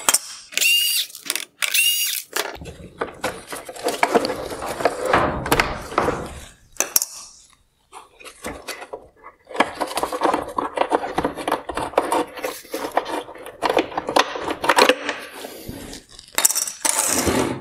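Hard plastic parts of an LED headlight housing being worked loose and handled, with irregular clicks, rattles and scraping. Two short squeaks at about one and two seconds in.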